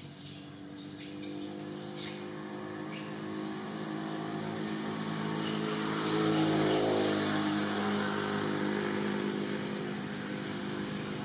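A motor vehicle's engine running steadily as it goes by, growing louder to a peak a little past the middle and then slowly fading.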